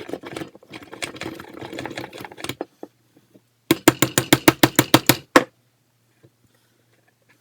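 Hand tools working metal hose clamps off carburetor fittings: irregular clattering and scraping, then about halfway through a quick run of about ten sharp metallic clicks, several a second.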